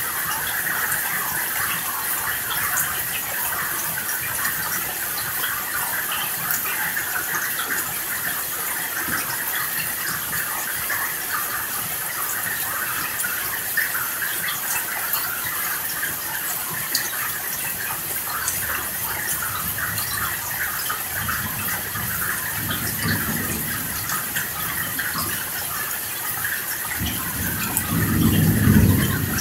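Steady hiss of heavy rain falling. Low rumbles of thunder swell up about two-thirds of the way in, and a louder rumble comes near the end.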